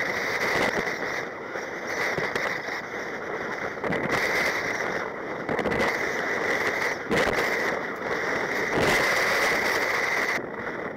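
Rushing, crackling noise of choppy seawater and wind buffeting a camera on a sea kayak paddling through rough, breaking waves. It drops away suddenly near the end.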